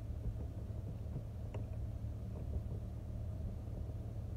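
Steady low rumble of background shop noise, with one faint click about one and a half seconds in.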